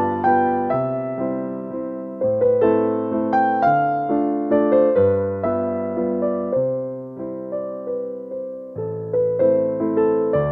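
Background music: a slow piano piece, melody notes struck over changing low chords, each note fading after it is struck.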